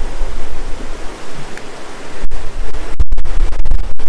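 Loud, steady rush of a flooded river pouring through the mill, with wind buffeting the microphone, easing for about a second and then gusting back. The sound cuts out briefly a few times.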